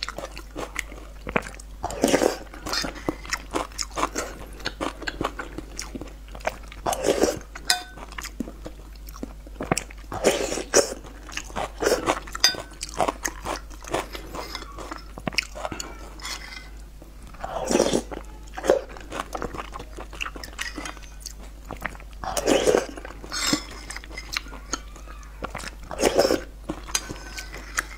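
Close-miked eating: chewing and biting mouthfuls of a saucy egg and green pepper stir-fry, in bursts every few seconds, with small clicks between them.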